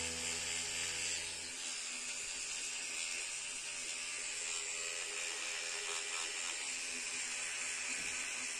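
Electric toothbrush running with a steady hum during teeth brushing, over a faint even hiss. The tail of background music dies away in the first second and a half.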